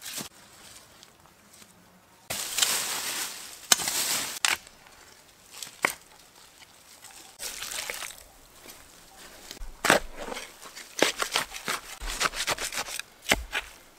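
Dry fallen leaves rustling and crunching underfoot and under hands for a couple of seconds. From about ten seconds in, a spade digs into forest soil, making a quick run of scraping strokes and soft thuds.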